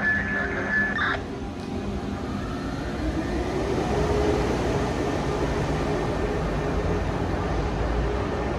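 Electric passenger train running on the tracks: a steady low rumble, with a motor whine that rises and then holds a steady pitch about three seconds in. A high steady squeal cuts off sharply about a second in.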